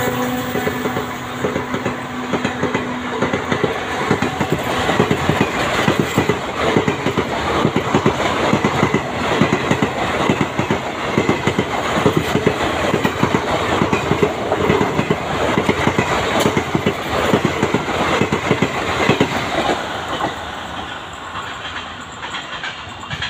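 Indian Railways ICF passenger coaches passing at speed, their wheels clattering over rail joints in a fast, steady rhythm that fades over the last few seconds as the end of the train goes by.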